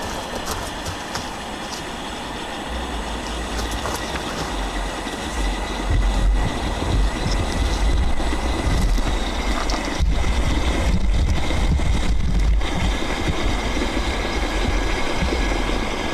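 A 1400-watt electric steamer heating its water: a steady hiss with a low rumble that builds and grows louder about five seconds in as the water comes to the boil.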